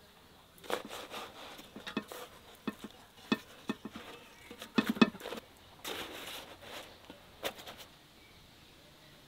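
Irregular clicks and light knocks of food being handled with hands and utensils, a few at a time and loudest about halfway through, stopping about eight seconds in.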